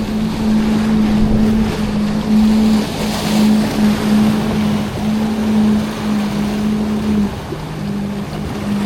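A boat engine running at a low, steady hum, with waves washing and wind on the microphone.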